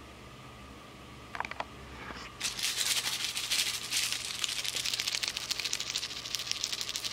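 A shiny pink cat toy ball shaken in the hand, rattling rapidly and continuously from about two and a half seconds in. Before that there is a brief high squeak at about a second and a half.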